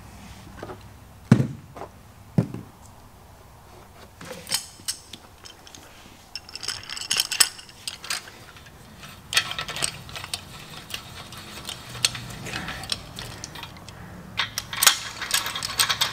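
Metal clinking and clattering of a main bearing cap and its bolts being fitted to a bare engine block and run down with a socket on a speed handle, with two knocks about a second apart near the start and a quick run of clicks near the end.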